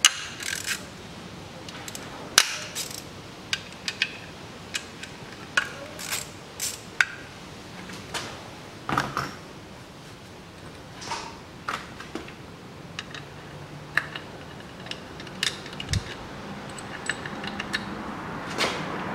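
Hand ratchet clicking in short scattered runs, with light metal-on-metal taps, as the three bolts holding the CVT's oil strainer to the valve body are undone. A soft hiss builds near the end.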